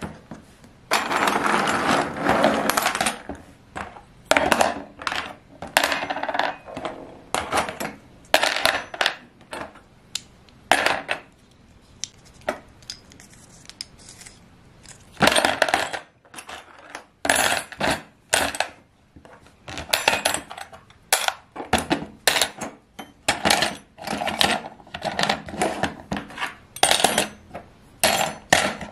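Small brass and metal binocular parts (rings, eyepiece barrels and lens cells) clinking and clattering as they are dropped one after another into a plastic tub. The clinks come irregularly, with a longer clatter about a second in.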